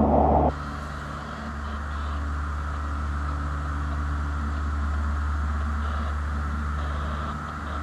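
Steady machinery hum with a low drone and a hiss on top, inside a ship's steel cargo hold; a louder rushing noise cuts off suddenly about half a second in.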